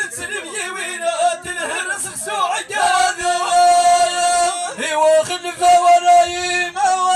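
Male voice chanting a line of Amazigh sung poetry through a microphone, the melody bending and then settling into long held notes.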